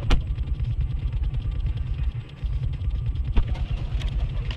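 Low, steady rumble of a car standing at a traffic light, picked up inside the car by a dashcam microphone. Two sharp knocks cut through it, one at the very start and one about three and a half seconds in.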